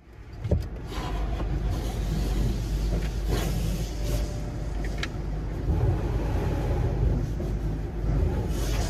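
Soap foam and water spraying onto a car's windshield and body in an automatic tunnel car wash, heard from inside the car's cabin over a steady low rumble.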